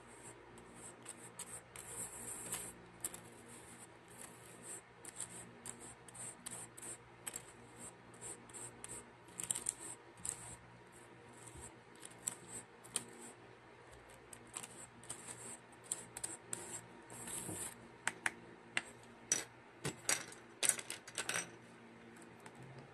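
Plastic spoon and gloved fingers scraping, rubbing and tapping against a plastic tub of kinetic sand clay: a long run of short, dry scratches, with sharper clicks and taps crowding together near the end.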